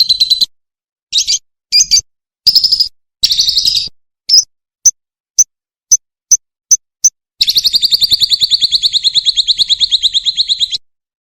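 Edited birdsong tutor track of lovebird, cililin and fighting sparrow calls: a fast high trill cut off abruptly, a few short chattering bursts, a row of about eight sharp single chips at roughly two a second, then a long fast rattling trill of about three seconds that stops shortly before the end.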